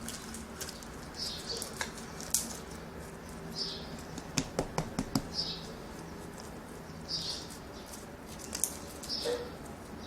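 Homemade borax slime being handled and pulled apart, giving scattered sharp clicks and pops, with a quick run of clicks about four to five seconds in. A short high chirp recurs every couple of seconds.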